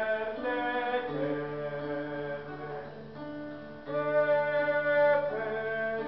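Live song sung to an acoustic guitar, the voice holding long, level notes.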